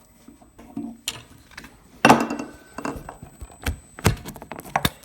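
Metal clanks and knocks as a Reeder Products belt grinder is lifted and pulled out of its mount to be laid down horizontally: several separate sharp knocks, the loudest about two seconds in.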